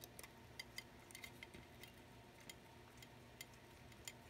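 Faint, irregular little clicks and ticks of a precision screwdriver working the tiny screws that hold the rear element group in a Nikon 70-200mm f2.8 lens barrel.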